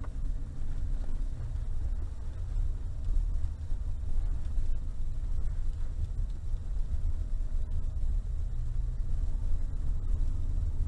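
Steady low rumble of a Mercedes 4x4 SUV driving, heard from inside the cabin: engine and tyre noise with no sharp knocks or bumps.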